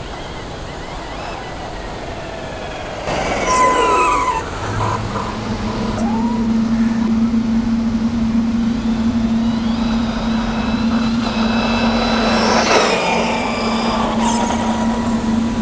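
Large electric RC buggy driving past, its motor whine falling in pitch about four seconds in and again near thirteen seconds, over a steady hum.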